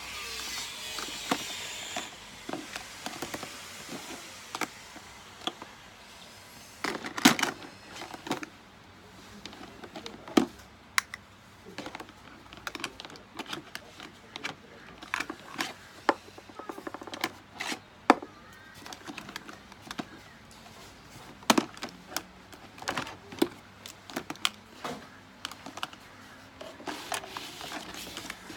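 Plastic makeup cases and compacts clicking and knocking as hands pick them up and set them down in a plastic storage box, in irregular taps with a few louder knocks.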